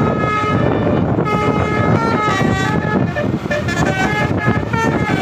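Bus 'telolet' musical air horn, played by an electronic horn module, sounding a fast tune of short, changing notes over a low rumble of engine and traffic.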